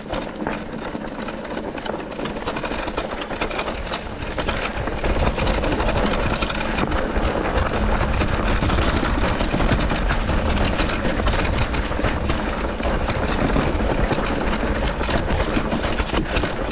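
Mountain bike riding along a dirt trail: a steady rush of tyre and air noise with frequent rattles and knocks from the bike over rough ground, getting louder about five seconds in.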